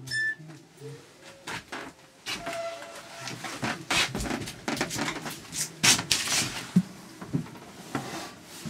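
Irregular footsteps, knocks and bumps on a locomotive's steel floor plates and cab fittings, with rubbing handling noise, as someone squeezes from the driving cab into the narrow engine-room walkway. The clatter is busiest in the middle, with a few sharp knocks.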